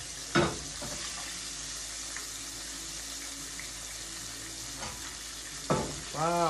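Chicken wings frying in hot oil in a pot, a steady sizzle. Metal tongs give a sharp clack about half a second in and a few lighter knocks near the end as wings are lifted out.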